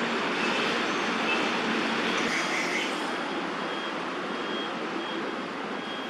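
Steady road traffic noise, an even rush with no speech. From about halfway through, a faint short high beep repeats at a regular pace.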